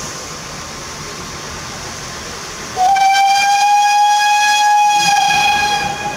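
Pt47 steam locomotive's whistle blowing one steady, high call of about three seconds, starting about halfway in: the departure signal. Before it there is a steady rushing hiss.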